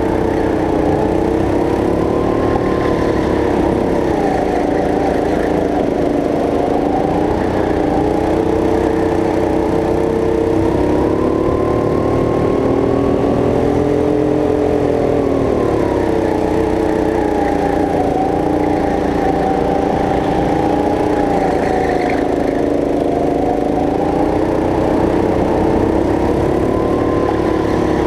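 Go-kart engine heard from the kart itself, running continuously, its pitch climbing and dropping again several times as the kart speeds up and slows around the track.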